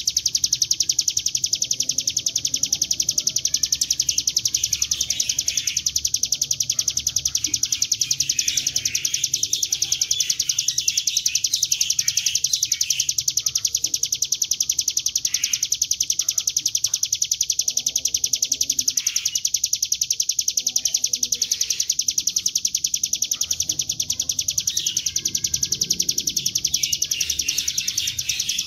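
Ciblek gunung, a prinia, singing a long unbroken high-pitched rapid trill, the drilling "ngebren" song, with short chirps breaking in over it.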